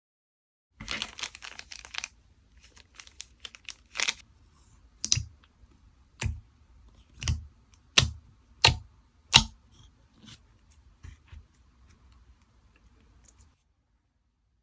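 Packaging being handled: about a second of crinkling and tearing, then a run of some seven sharp clicks or snaps, roughly one a second, each with a soft thud beneath it.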